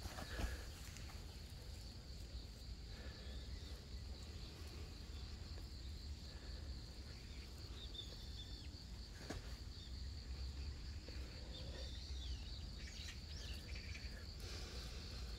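Insects chirping in a steady, unbroken high trill, faint, with a low rumble underneath and a few soft rustles.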